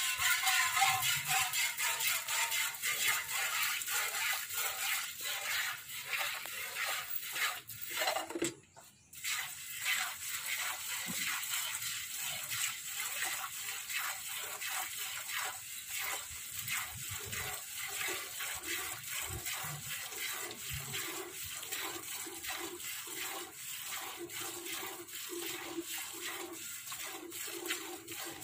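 Water buffalo being hand-milked into a steel bucket: rhythmic squirts of milk hissing into the pail, stroke after stroke, with a short break about eight seconds in.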